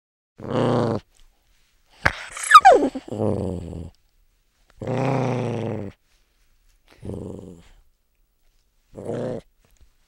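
A small canid growling in about five short bursts, with a sharp, high-pitched yelp sliding down in pitch about two seconds in.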